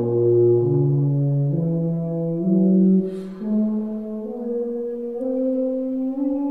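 Tuba playing up its natural harmonic series on one valve setting, slurring about eight notes that climb step by step. There is a brief hiss between notes about three seconds in.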